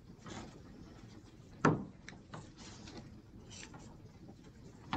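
Faint handling sounds of felt craft pieces and glue dots being worked on a tabletop, with one sharp knock about a second and a half in and a smaller click near the end.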